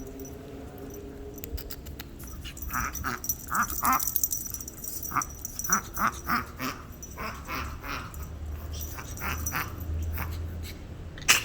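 Chihuahua puppy hiccuping, a run of short, quick hiccup sounds at uneven intervals, brought on by eating too fast. A single sharp click near the end.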